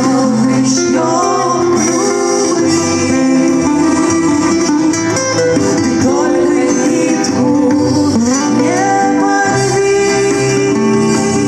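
Live band music: acoustic guitar with a melody line on top whose notes slide between pitches.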